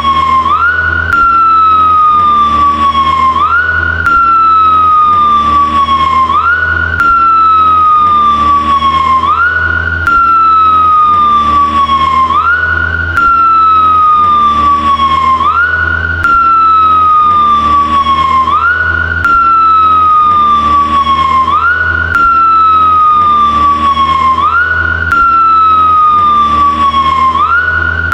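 Japanese white police motorcycle's siren wailing: each cycle rises quickly and then falls slowly, about every two seconds, over a low engine hum. The same few seconds are spliced end to end, with a small jump in level about every three seconds.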